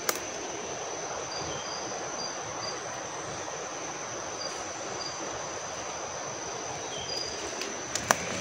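Forest ambience: an insect drones steadily at one high pitch over a broad, even rushing noise. A few brief high chirps come through, with a sharp click at the start and two more near the end.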